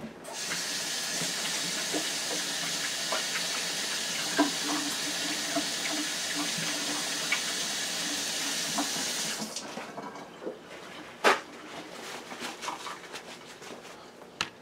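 Kitchen sink tap running steadily while hands are washed under it, for about nine seconds, then turned off. A single sharp knock follows about two seconds later, among faint handling sounds.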